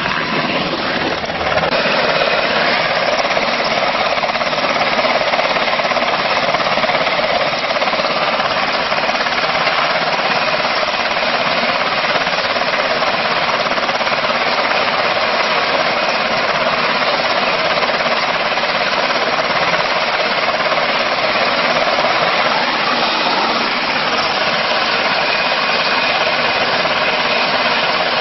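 Black Hawk helicopter running close by: the loud, steady chop of its rotor blades over the rush of its turbine engines.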